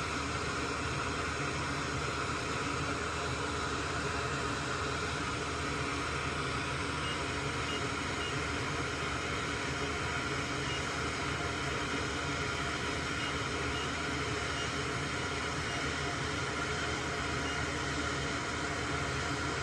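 A steady, unchanging hiss with a low hum underneath, like a fan or ventilation running.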